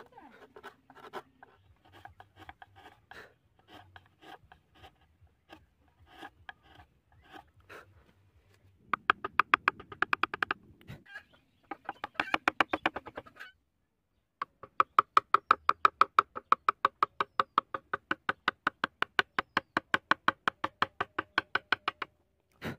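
Carving chisel working hardwood by hand: light scrapes and clicks at first. From about nine seconds in come quick, even taps, about five a second, in two runs with a short break between.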